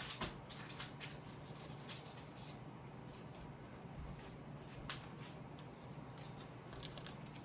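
Faint, scattered clicks and rustles of trading cards and plastic card sleeves being handled.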